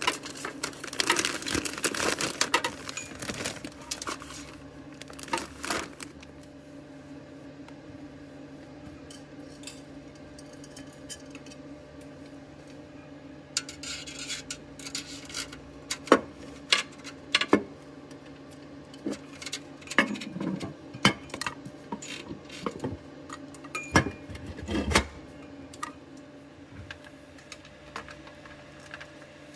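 Plastic grow bags of millet rustling and crinkling as they are packed into an aluminium pressure canner, then scattered metal clinks and knocks as the canner's fittings and lid are handled, over a low steady hum.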